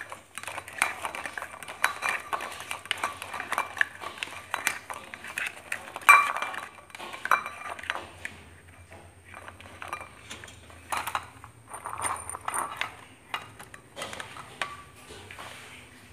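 Irregular clinks and knocks of a plastic spoon and boiled eggs against a small ceramic bowl as the eggs are rolled in red food colouring, busiest in the first half and sparser later.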